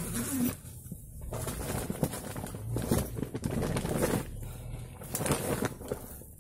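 Rustling and scuffing of nylon tent fabric and clothing as a man shifts about and settles down sitting in a tent doorway, in uneven bursts with a few sharper knocks. A bird calls softly in the background.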